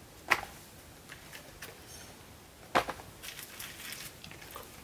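Silicone pop-it fidget toys being set down and shuffled on a pile: two sharp slaps, one just after the start and one a little before the three-second mark, with lighter taps and rustling between.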